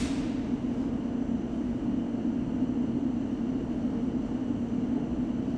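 London Underground train giving a steady low hum and rumble.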